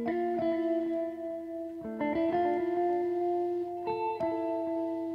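Background music: slow sustained plucked chords, a new chord about every two seconds.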